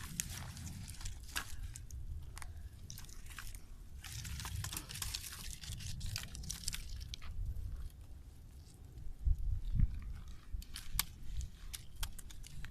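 Crunching and scraping of charred sticks and embers as a campfire is raked apart, with many sharp cracks and clicks throughout. A brief low rumble comes about nine seconds in.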